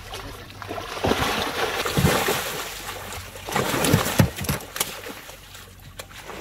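Large fish thrashing in a cast net at the water's surface, splashing hard as the net is hauled up against the side of a wooden boat. The splashes come in irregular bursts, the heaviest about four seconds in, and ease off near the end.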